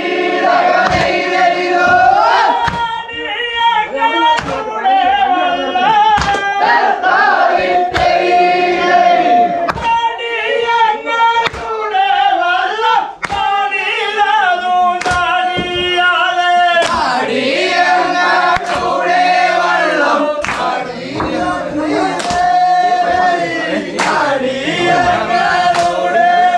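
Group of men singing a Vanchippattu (Kerala snake-boat song) together, with long held notes, over a sharp beat that keeps time a little more than once a second.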